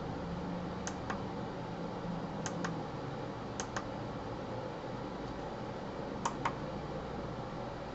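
Small pushbuttons on an LED clock clicking as they are pressed and released, four times, each press a quick double click, over a steady low hum.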